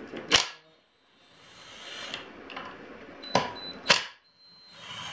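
Sharp metallic clicks of a cordless drill-driver and parts knocking against a transmission case: one near the start and two about half a second apart after about three seconds, with faint handling rustle between.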